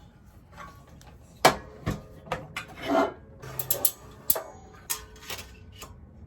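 Scattered sharp clicks and metal-and-wood knocks from a large beam saw being handled, with its depth of cut set at its maximum, a little over 6 inches.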